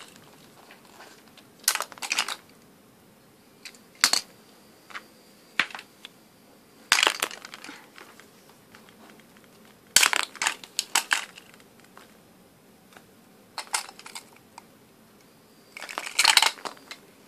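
Small plastic toys being handled, clattering and knocking against each other and the wooden floor in irregular bursts of clicks and rattles.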